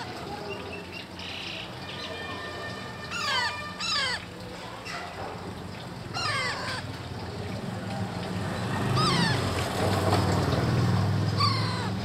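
Alexandrine parakeet chicks giving about five short, harsh squawks a few seconds apart. Each call falls in pitch.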